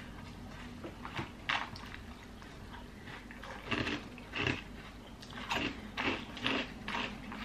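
A person chewing a mouthful of crunchy breakfast cereal in milk: a run of short, crisp crunches, a couple about a second in and more, about every half second, from halfway through.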